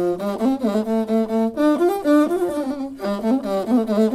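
Masinqo (chira-wata), the one-string bowed fiddle, played solo: a melody of held notes that step and slide between pitches, with a slight bend on some notes.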